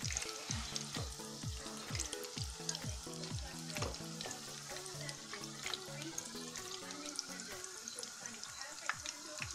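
Hot oil sizzling and crackling as chicken pakoras deep-fry, over background music with a regular drum beat and held bass notes; the beat drops out near the end.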